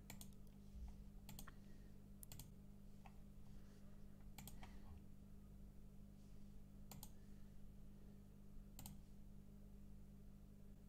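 Near silence with a low steady hum and faint, scattered clicks of a computer mouse and keyboard, about seven in all.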